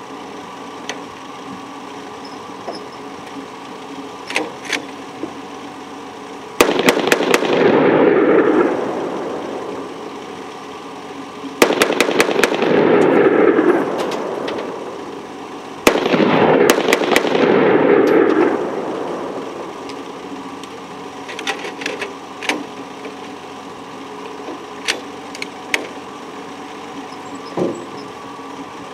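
Three short bursts of rapid fire from a hand-cranked semi-automatic Browning 1919 in 8x57, several shots in quick succession each time, about five and four seconds apart. Each burst is followed by an echo that dies away over two or three seconds. A jeep engine idles steadily underneath, with a few scattered light clicks between the bursts.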